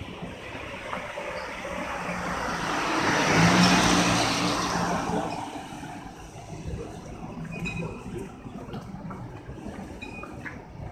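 A car passing by: engine and tyre noise swell to a peak about four seconds in, then fade away.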